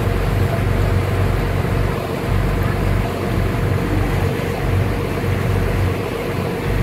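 A boat's engine running steadily under way, with wind buffeting the microphone.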